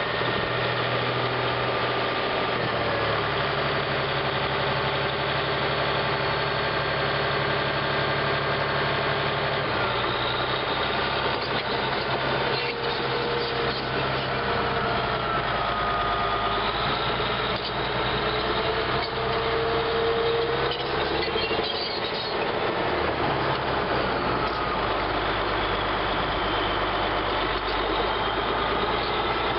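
Caterpillar D8R bulldozer's diesel engine running. Its note shifts a few times, with whines that rise and fall in pitch over it.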